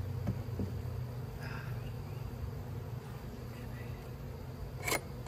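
Honeybees humming around an opened hive, a steady drone, with one sharp click near the end.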